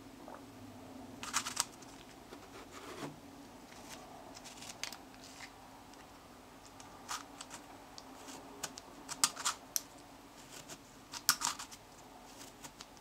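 Gyrobifastigium twisty puzzle being turned by hand: irregular clicks and clacks of its layers turning, some in quick clusters of two or three, with quieter gaps between.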